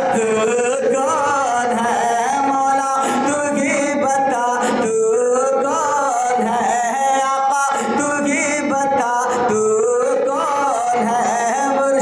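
A man singing a naat, holding long, drawn-out notes that bend up and down in pitch, with short breaks between phrases.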